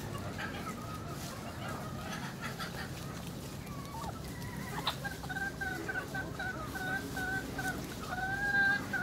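A flock of free-range chickens clucking, with scattered calls at first and then a steady run of short repeated calls from about halfway through. A single short sharp click sounds about five seconds in.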